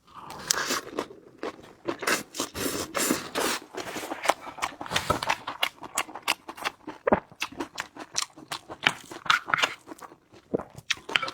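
A person chewing and crunching food close to the microphone: many quick, irregular crunches.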